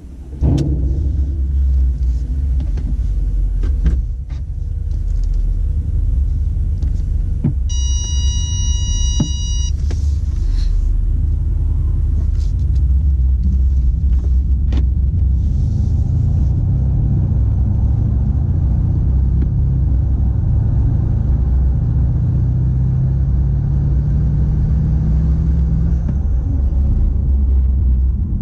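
Tuned Mercedes 5.8-litre twin-turbo V8 heard from inside the cabin: it starts up at the very beginning with a brief flare, then runs as a loud, steady low rumble while driving, its pitch rising and falling gently with engine speed. An electronic beep sounds for about two seconds, some eight seconds in.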